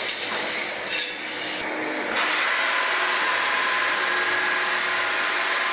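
Sleeper incising machine running as a wooden railway sleeper is fed through, its teeth punching rows of incisions into the wood before impregnation. A couple of knocks come in the first second, then a steady loud mechanical noise.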